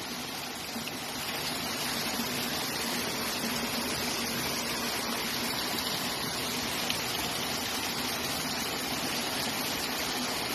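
Spring water gushing steadily out from between rocks on a mountainside, a continuous rush that rises slightly about a second and a half in.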